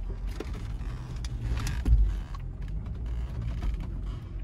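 Off-road 4x4 driving slowly over a rough dirt trail: a low rumble of engine and tyres, with scattered knocks and rattles, the loudest a thump about two seconds in.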